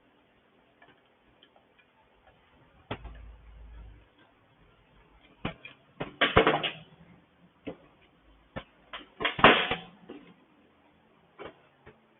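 Metal clicks and clatters of hand tools and small fasteners being worked and handled on a GCV small engine while the valve cover bolts come off, with a short low rumble about three seconds in and two louder spells of rattling about six and nine seconds in.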